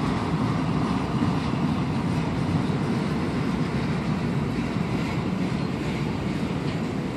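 Freight train cars rolling steadily past on the rails: centerbeam flatcars, a covered hopper and tank cars going by with an even, continuous rolling noise.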